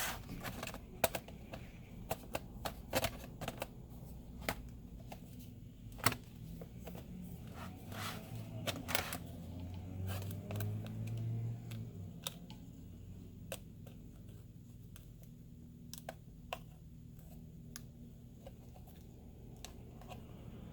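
Scattered small clicks and taps of hands working inside an open HP Stream laptop, pressing its internal cable connectors back into their sockets; the loudest snap comes about six seconds in.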